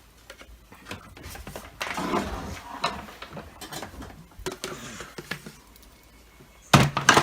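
Clicks, knocks and rattles of plastic vacuum parts being handled and fitted together, with a few sharper knocks near the end.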